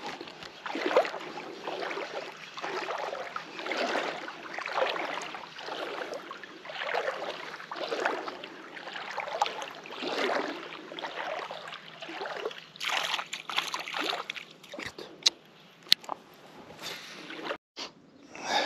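Shallow lake water sloshing and lapping in irregular surges, about one a second. A few sharp clicks come near the end.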